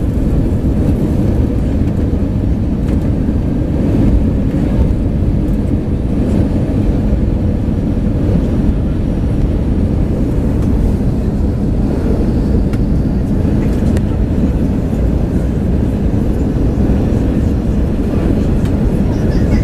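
Steady rumble of an Airbus A320's engines and airflow heard from inside the passenger cabin during the descent on approach to landing.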